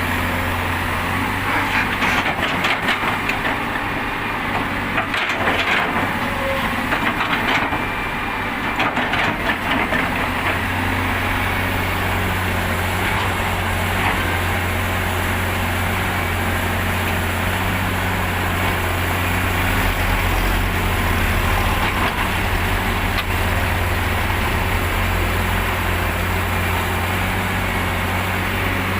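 Heavy diesel engines of an excavator and dump trucks running with a steady low hum, with repeated short rattling bursts over roughly the first ten seconds.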